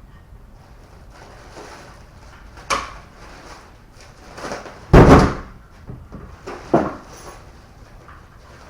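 Car door and its newly fitted outside handle being worked: a latch click, then a heavy door thump about five seconds in and another sharp clunk shortly after.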